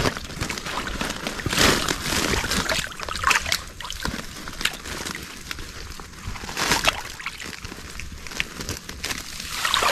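Water sloshing and trickling, with a few louder splashes about two seconds in and again near seven seconds, as a fish trap with fish inside is handled in the water.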